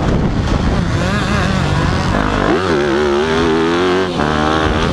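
Motocross bike engine running hard on a dirt track, its pitch rising and falling with the throttle: a sharp rev-up about two and a half seconds in and a drop a little after four seconds. Wind rush on the bike-mounted camera underneath.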